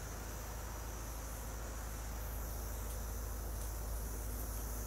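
Insects chirring steadily, over a low steady hum.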